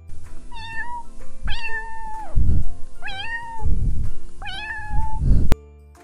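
Domestic cat meowing four times in high, drawn-out calls, with low thumps between the meows; the recording cuts off abruptly near the end.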